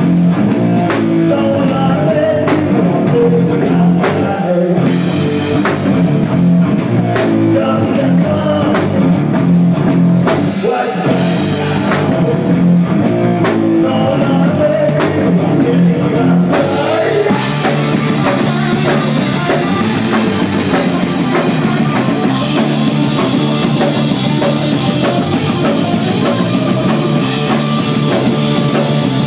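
Rock band playing live and loud: electric guitars over a drum kit. A little over halfway through, the music gets brighter and busier in the high end.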